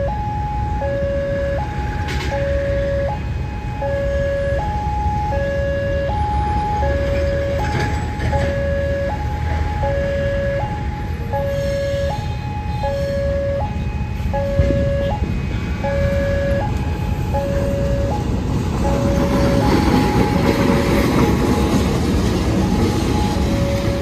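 Railway level-crossing alarm sounding its steady alternating two-tone warning, a higher note then a lower one about once a second, which signals that a train is approaching. Under it is a low rumble, and over the last few seconds the engine noise of the arriving train's CC 206 diesel-electric locomotive swells as it draws near.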